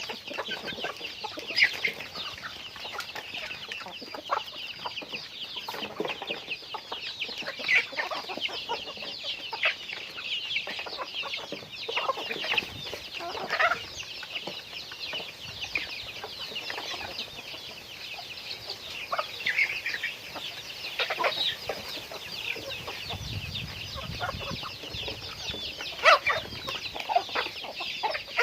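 A flock of chickens clucking and calling: a constant chatter of short calls, with louder single calls standing out every few seconds.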